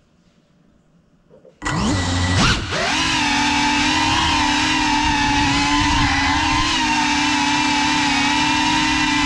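FPV quadcopter's motors and propellers starting up suddenly about a second and a half in, with a brief rise and dip in pitch, then running on as a loud, steady whine.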